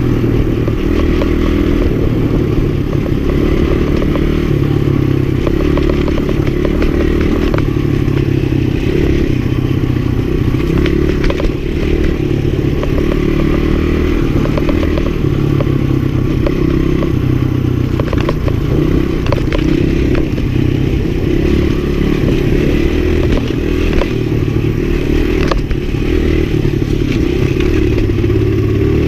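A 1984 Suzuki DR100's small single-cylinder four-stroke engine is running under way, its revs rising and falling in steps over and over. Scattered knocks and rattles come from the bike bouncing over rough ground.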